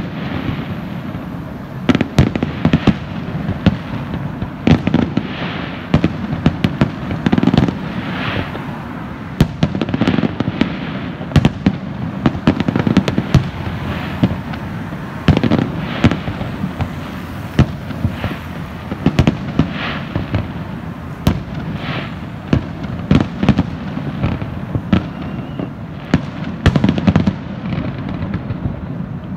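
Aerial fireworks display: a dense run of sharp bangs from bursting shells, several a second at times, over a steady low rumble.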